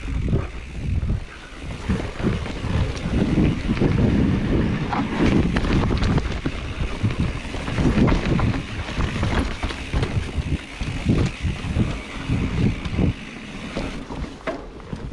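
Mountain bike descending a dirt trail at speed: wind buffeting the microphone over tyre rumble, with frequent short knocks and rattles from the bike over bumps and roots.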